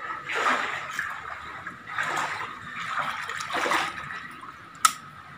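Floodwater sloshing as someone wades through it, three soft swishes about a second and a half apart, with a sharp click near the end.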